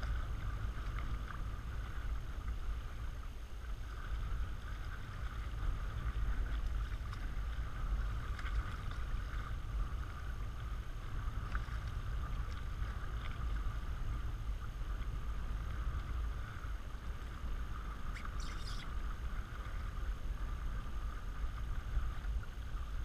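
Water rushing and splashing along the hull of a small sailboat under way, with a steady low wind rumble on the microphone.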